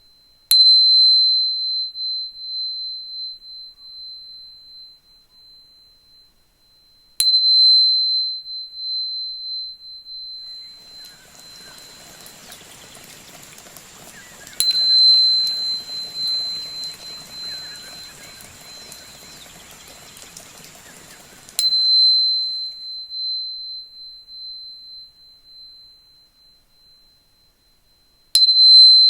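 Crystal tuner (a high-pitched tuning fork) struck five times, about every seven seconds. Each strike rings out as one clear high tone that slowly fades.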